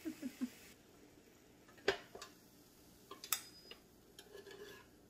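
Electric krumkake iron being opened. A few short squeaks and a hiss from the closed iron fade out in the first second. Then its metal lid gives sharp clicks and clacks, the loudest about two seconds in and a few more around three seconds.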